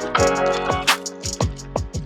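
Background music: an instrumental track with a steady drum beat.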